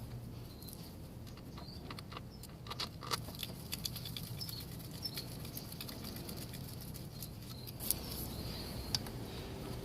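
Sparse light clicks and taps of a hand wrench as three small screws on a motorcycle engine are snugged down, over a faint steady low hum.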